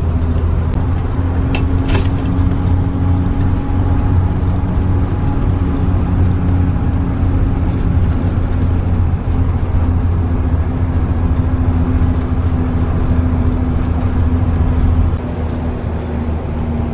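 Motorhome's engine pulling hard up a long steep grade, a steady low drone mixed with road noise as heard from inside the cab. It eases off a little near the end.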